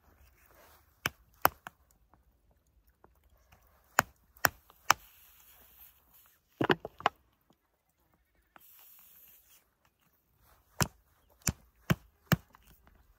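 Sharp chopping blows, about a dozen, in uneven groups of two or three with short pauses between, as a spot on the bank is cleared.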